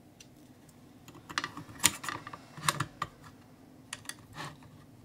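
Scattered light clicks and taps from a small circuit board and its antenna being handled and set on a hard work surface, the loudest a sharp click about two seconds in.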